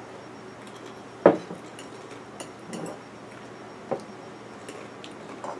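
Tableware sounds at a wooden table: a glass hot-sauce bottle and forks and spoons knocking and clinking. There is one sharp knock a little over a second in, a softer one about four seconds in, and small clicks of cutlery on plates between them.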